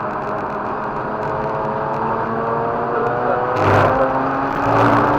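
Mazda RX-8's two-rotor Renesis rotary engine under hard acceleration, rising in pitch. About three and a half seconds in it shifts up, dropping to a lower note that starts climbing again. There is another brief loud burst near the end.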